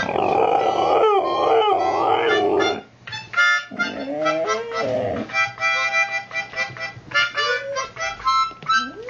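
A husky howling along with harmonica music: long sliding howls rise and fall between the harmonica's pulsing chords.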